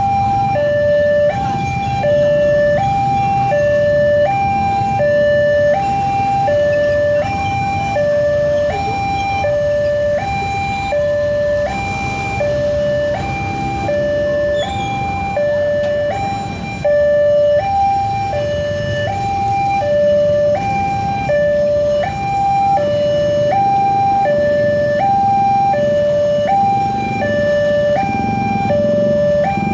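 Railway level-crossing alarm sounding from its loudspeaker: an electronic two-tone signal steadily alternating between a lower and a higher note, warning that a train is approaching and the barrier is down.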